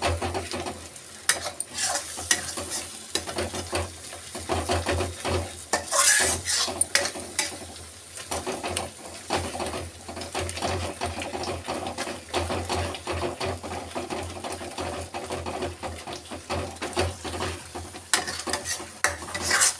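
A metal spoon stirring and scraping thick masala paste around an aluminium kadai, in irregular strokes, with the paste sizzling as it fries in oil.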